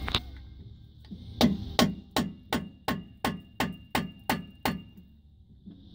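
Hammer striking an extension bar held against a rear disc brake caliper, tapping at the seized metal shim that holds the caliper in: a run of ten sharp metal-on-metal blows, about three a second, each ringing briefly.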